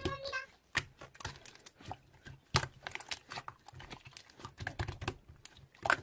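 Computer keyboard typing: a run of quick, irregular key clicks.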